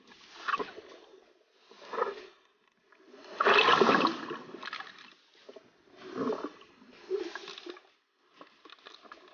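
Scuba regulator breathing underwater: exhaled air gurgling out in bubble bursts, one after another with short quiet gaps, the longest and loudest burst about three to four seconds in.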